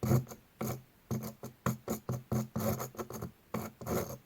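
Small electric motor of an old Hornby OO gauge locomotive buzzing in short stop-start spurts, about ten in a few seconds, as it fitfully begins to turn on battery power.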